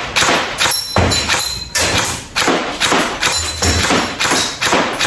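Golden Eagle 6669 airsoft electric machine gun firing single semi-auto shots in steady succession, about three a second. Each shot cycles cleanly while the gun feeds BBs from a standard M4 AEG magazine, showing the magazine works in this gun.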